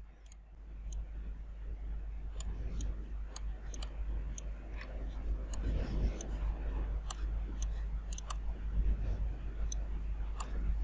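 Computer mouse clicking at irregular intervals, a dozen or more sharp clicks, some in quick pairs, over a steady low hum.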